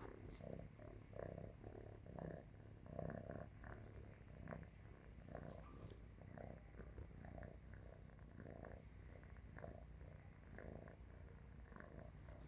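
Domestic cat purring while asleep: a faint, low, steady rumble that swells and eases in a rhythm of roughly one to two pulses a second as it breathes in and out.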